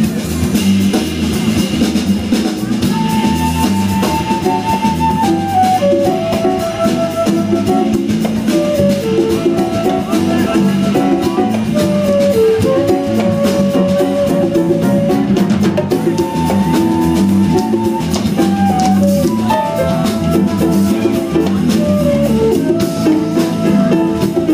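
Live Brazilian instrumental jazz band playing a baião: drum kit and percussion keep a steady groove under bass and keyboard, while a melody instrument plays a line of long held notes that step up and down.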